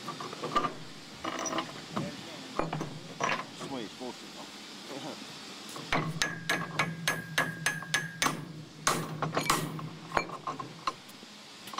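Hand tools on steel bolts and a steel splice plate: scattered metal clicks, then about halfway in a quick run of sharp metallic clicks and knocks at about four or five a second, some of them ringing, over a steady low hum.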